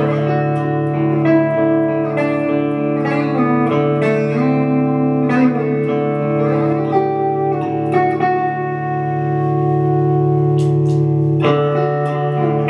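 Fender Stratocaster electric guitar played through a Fender Champion 100 amplifier: picked single notes and chords that ring on with long sustain. One chord is left ringing for a few seconds, and a new chord is struck near the end.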